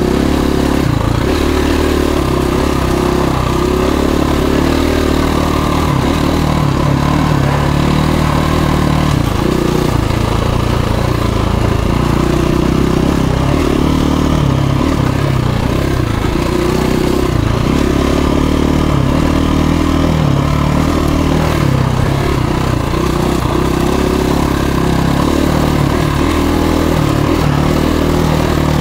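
2017 KTM 350 EXC-F's single-cylinder four-stroke engine running continuously while the bike is ridden over a rocky dirt trail, its pitch rising and falling as the throttle is worked.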